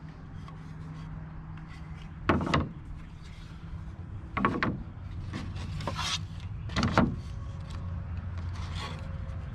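Wooden table parts being handled: four short knocks and scrapes of wood on wood, over a steady low hum.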